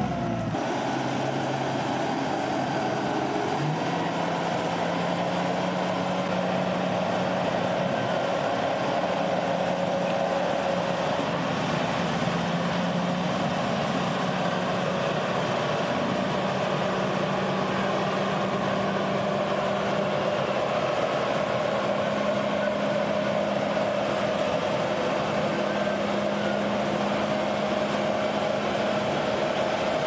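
An engine running steadily at an even speed, without revving.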